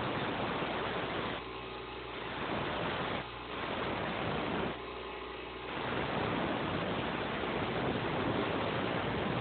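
Grinder with a lock pick blank pressed against it in passes of about a second each: a steady grinding hiss, broken by short quieter spells in which only the motor's hum is heard. The last pass, starting a little past halfway, runs longest.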